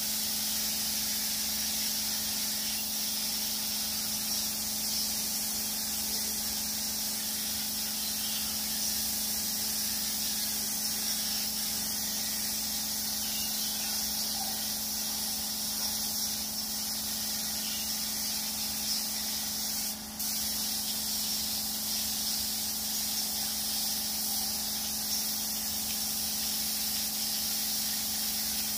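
Compressed-air spray gun (K3 type) spraying paint in a steady hiss, with a steady low hum underneath; the spraying breaks off for a moment about two-thirds of the way through, then resumes.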